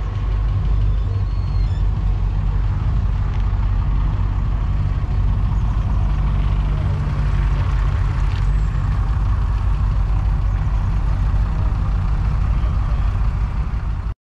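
Classic two-door Range Rover's V8 engine running as the car drives past, a steady low rumble with no change in revs.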